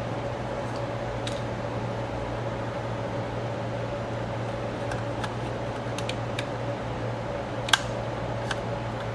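Steady fan hum with a low drone and a faint tone above it. Scattered light clicks sound over it, and a sharper single click comes about three quarters of the way through.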